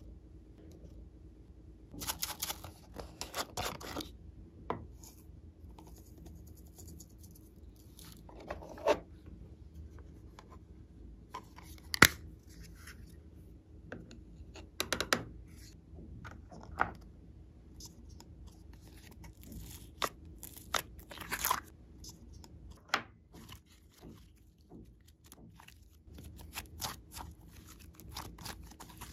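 Small plastic containers of glitter and sequins being handled and shaken out over a tray of slime: scattered short rustles, taps and clicks with quiet gaps between them. Near the end, softer handling of slime being kneaded.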